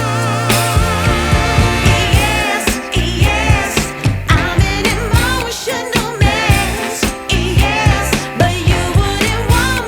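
Background pop music with a steady beat and a singer with vibrato.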